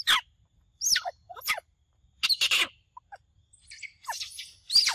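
Birds calling: short, sharp high calls that sweep steeply down in pitch, coming every second or so, then crowding together into a denser run of chattering calls near the end.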